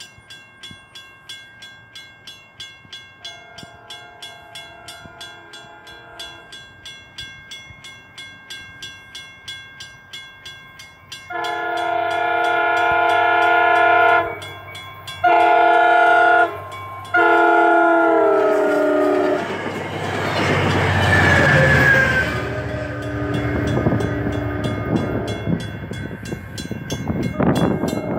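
Railroad grade-crossing bell ringing at about two strokes a second while an approaching commuter train sounds its horn, first faint and then loud, in the crossing pattern long, long, short, long, the last note dropping in pitch as the cab car goes by. The horn gives way to the rumble and wheel noise of the passing train, with a brief high wheel squeal.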